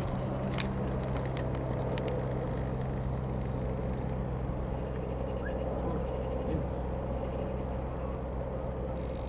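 A steady, unchanging low engine drone with a few faint ticks over it.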